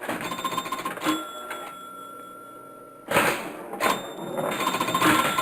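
Pinball machine being played: clicks and rattles with held ringing tones, two loud noisy bursts about three and four seconds in, then a fast, even rattle near the end.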